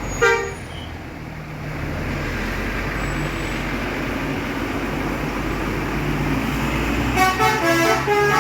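Bus departing with its engine running low and steady, a short horn toot just after the start, then near the end its telolet horn playing a quick tune of several changing notes.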